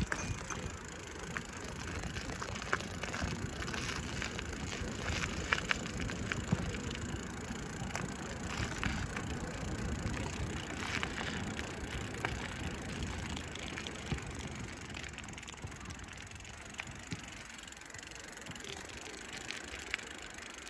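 A bicycle being ridden: rattles and clicks from the bike and tyres over an uneven surface, with a low wind rumble on the microphone. The rattling thins out over the last several seconds.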